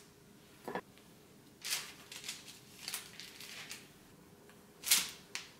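Baking parchment rustling softly in a few brief bursts as balls of cookie dough are set down on it by hand, with a sharper, louder rustle about five seconds in.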